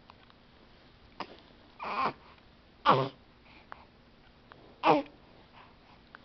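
Newborn baby making short vocal noises: four brief ones, about a second or two apart, the middle two the loudest.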